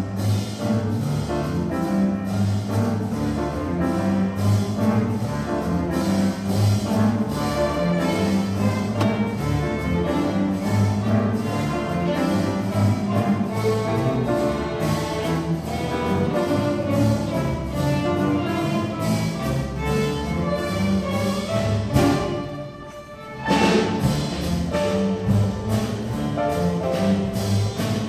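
String orchestra playing a lively piece, with cellos and double basses carrying a low line under the violins. A little past two-thirds of the way through the music drops to a brief hush, then comes back in loudly with the full ensemble.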